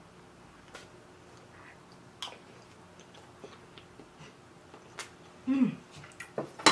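Close-miked chewing of a mouthful of food, with soft wet mouth clicks. About five and a half seconds in comes a short low 'mm' hum, falling in pitch, followed by a few sharp lip smacks near the end.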